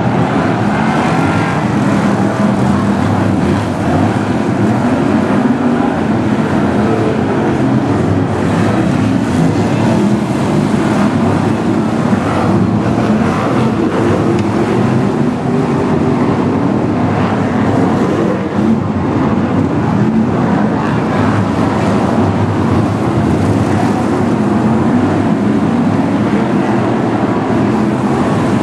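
A pack of BriSCA F1 stock cars racing flat out, their V8 engines running together in a loud, steady blend of engine noise.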